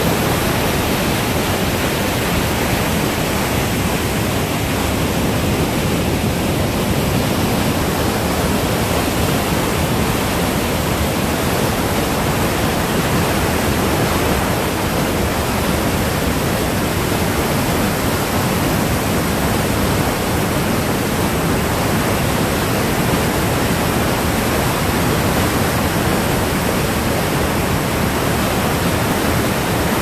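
Whitewater of a river cascading and rushing through a rocky gorge: a loud, steady rush of water with no breaks.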